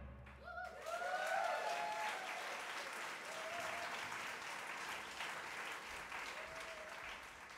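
Concert audience applauding with a few shouted cheers, breaking out about a second in as the last low drum note dies away, then slowly fading.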